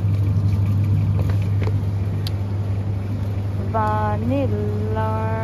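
Steady low hum of a supermarket's refrigerated dairy display. A few light clicks occur as a plastic yogurt tub is taken from the shelf and handled.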